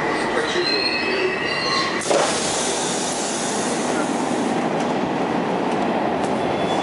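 Moscow Metro subway train coming to a stop, with high wheel squeal in the first two seconds. A sharp knock about two seconds in, as the doors open, is followed by the steady noise of the train standing at the platform.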